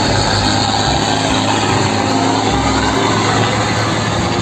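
Six-wheeled road tanker truck driving along a road, its engine running steadily with road noise.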